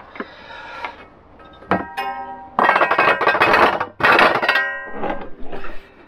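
Background music with a plucked-string sound, overlaid by loud rustling and scraping handling noise from about two and a half seconds in, as the diesel heater unit is set down against the microphone's furry windshield.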